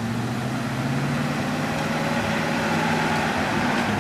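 Six-wheeled ex-military truck's engine running at low, steady revs as it crawls across a wooden plank bridge, with the rush of a river beneath.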